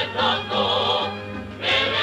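A folk choir singing with instrumental accompaniment; the singing eases off about a second in and comes back strongly near the end.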